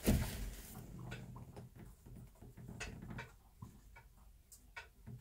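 Bantam hen shifting on a grass-and-hay nest: a brief rustle right at the start, then scattered light ticks and crackles of dry stalks.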